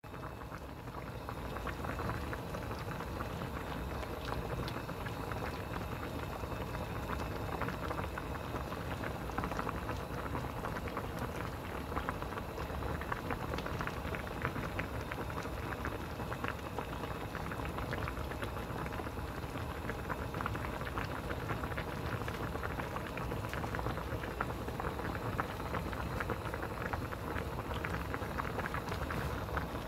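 Spicy dumpling hot-pot broth boiling hard in a small aluminium saucepan on a gas stove: steady bubbling with many small pops throughout.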